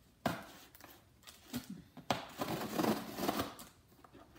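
A blade cutting the packing tape along the top of a cardboard box: a sharp click just after the start, then a longer run of scratchy slicing and scraping in the second half.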